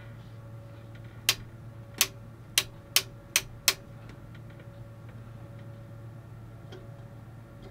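Six sharp clicks from the front-panel switches of an Eddystone 840A valve receiver as they are turned, coming about a second in over roughly two and a half seconds, over a steady low hum. The set is powered at full mains voltage but is not yet giving any audio.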